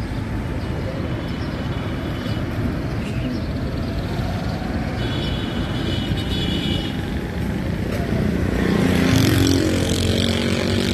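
Street traffic over the sizzle of onion pakoras deep-frying in a large wok of oil. A motor vehicle's engine grows louder and peaks about nine seconds in.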